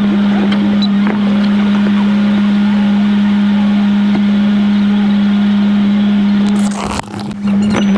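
Jeep's engine running, its sound sped up sixfold by the time-lapse into a steady high-pitched drone; it breaks off briefly about seven seconds in.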